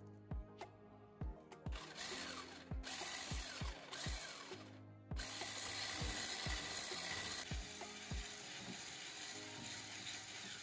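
Electric hand mixer running as it beats butter and sour cream into whipped egg whites, starting about two seconds in, cutting out briefly about halfway and running steadily again. Background music with a steady beat plays underneath.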